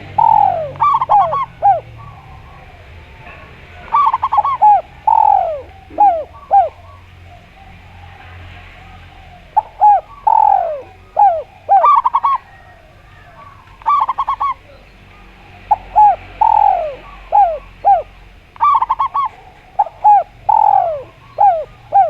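Caged doves cooing: a spotted dove (tekukur) and a zebra dove (perkutut) calling in repeated phrases of short clear notes, with a longer falling coo in each phrase. There are about six phrases, a second or two apart.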